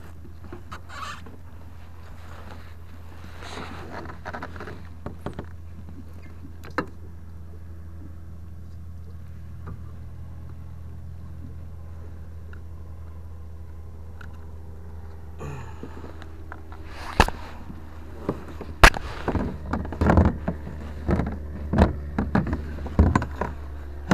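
Knocks and clatters of a landed bass and fishing gear being handled against the plastic hull of a fishing kayak, thick and loud from about two-thirds of the way in. Light scattered clicks come earlier, over a steady low hum.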